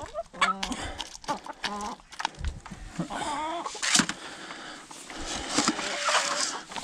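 Chickens clucking, with several short wavering calls among them, and sharp clicks of beaks pecking grain from a plastic scoop in the first couple of seconds.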